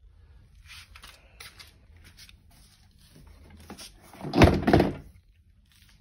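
A plastic Kärcher vacuum cleaner being handled and turned over on a tile floor: light scuffs and clicks, then a heavy double thunk about four and a half seconds in as its body knocks down onto the floor.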